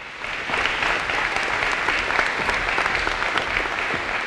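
An audience applauding: many hands clapping together in a dense, steady patter that swells up within the first half second.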